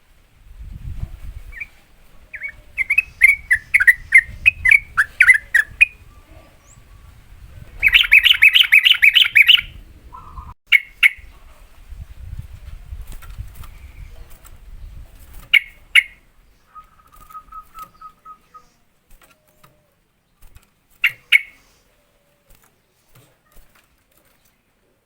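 Yellow-vented bulbul (trucukan) singing its rapid 'ropel' song: quick runs of bubbling notes, the loudest a dense fast trill about eight seconds in, then single short calls spaced several seconds apart. A low rumble lies under the first half.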